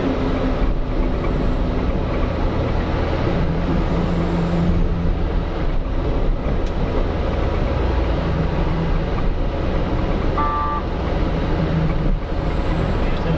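Steady low rumble of a truck engine running on the road, with a short horn toot about ten and a half seconds in.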